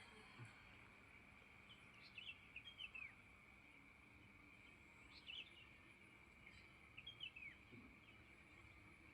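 Faint bird chirps in short clusters, a few sliding downward in pitch, over a steady high-pitched hum.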